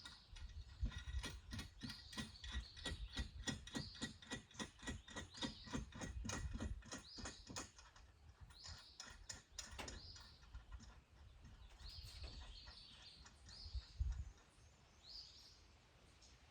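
A hand ratchet clicking at about three or four clicks a second for roughly the first half, then slowing to a few scattered clicks and knocks.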